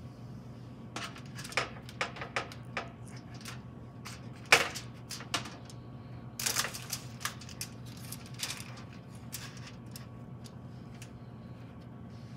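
Irregular clicks and taps of kitchen utensils and dishes being handled during food preparation, the loudest knock about four and a half seconds in, over a steady low hum.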